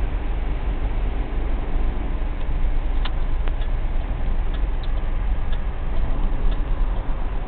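Storm wind buffeting the microphone: a steady deep rumble, with a few faint ticks, the clearest about three seconds in.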